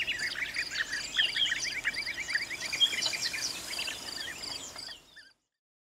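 Several wild birds chirping and calling together, with a fast run of rising notes about a second in and a high, evenly repeated chirp behind them; the sound fades out about five seconds in.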